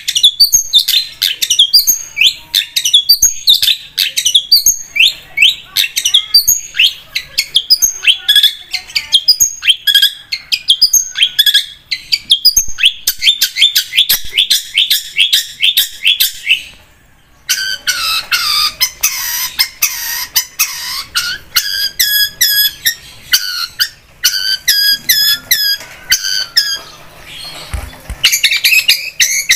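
Long-tailed shrike (cendet) singing a fast, varied song of sharp, high chattering notes. The song breaks off briefly a little past halfway, then resumes.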